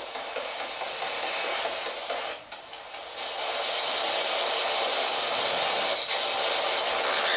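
Steady static hiss with a brief dip about two and a half seconds in.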